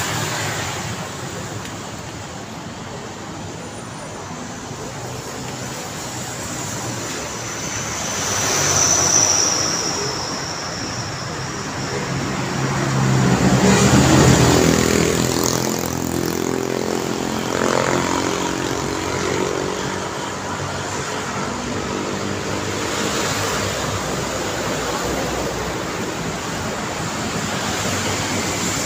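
Road traffic at night: motorbikes and cars passing by on a city street in a steady wash of engine and tyre noise. A loaded cargo truck passes close about halfway through, the loudest moment, its engine note rising and then falling away; another vehicle swells past about a third of the way in.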